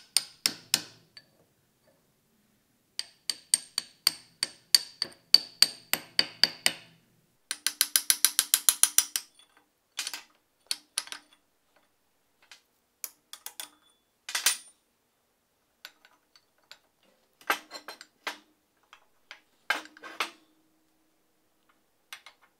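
Flat steel bar rattling and knocking inside the square hole of a rusty cast-iron vise body: runs of sharp metallic clicks, about three or four a second, with a faster rattle of about ten a second about eight seconds in, then scattered single clicks.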